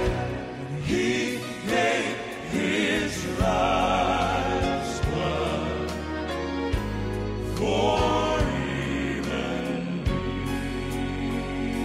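Male gospel quartet singing in close harmony, with held notes that waver with vibrato, over grand piano accompaniment.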